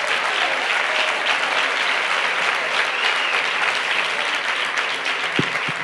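Audience applauding, easing off a little near the end.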